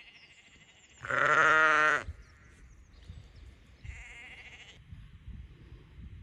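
Sheep bleating: one loud, quavering bleat about a second in, then a fainter bleat about four seconds in.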